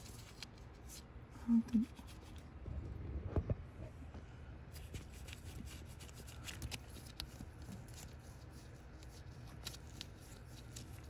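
Light handling noises of hands working on small car parts: scattered soft clicks and rubbing, with a short hum-like sound about a second and a half in and a dull knock a couple of seconds later.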